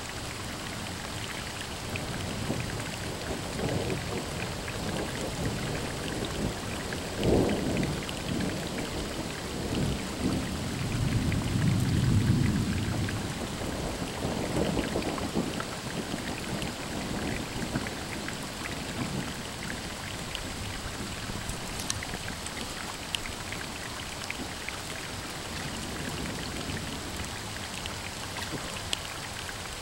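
Steady rain hissing, with a long roll of thunder: it breaks in sharply about seven seconds in, rumbles loudest around twelve seconds, and dies away by about twenty seconds.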